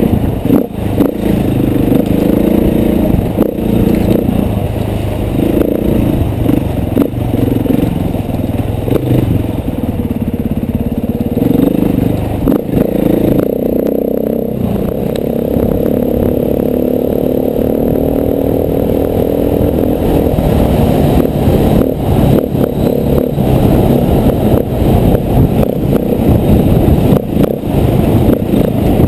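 KTM 450 four-stroke single-cylinder dirt bike engine running under load, its pitch rising and falling with the throttle, with frequent short knocks and rattles throughout.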